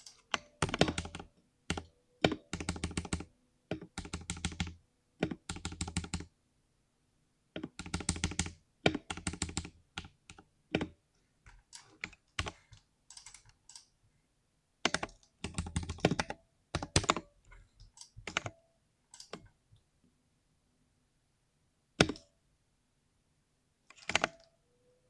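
Typing on a 60% mechanical keyboard tuned for a deep, 'thocky' keystroke sound: rapid runs of keystrokes separated by short pauses, thinning out near the end to a few single, louder strokes.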